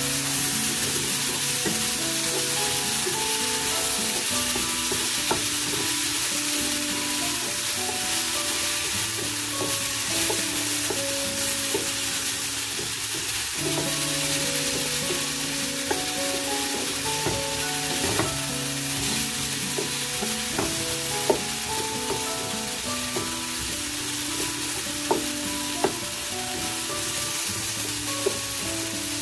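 Sliced potato, tomato, onion and capsicum sizzling as they fry in a nonstick pan, stirred steadily with a wooden spatula that knocks sharply against the pan a few times in the second half.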